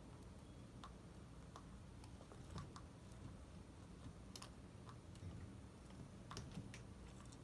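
Faint, irregular small clicks and crunches of a chinchilla nibbling and rummaging in dry food in its bowl.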